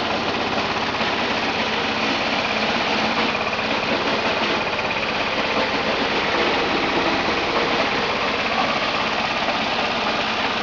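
Grass chopper and wood shredder machine running steadily on its small engine, with a dense, even mechanical noise.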